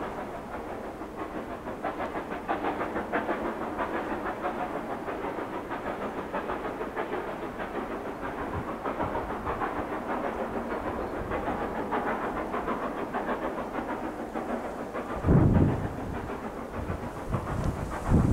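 LNER B12 steam locomotive 8572 working hard uphill out of sight, its rapid exhaust beats echoing in the distance. A gust of wind hits the microphone about fifteen seconds in.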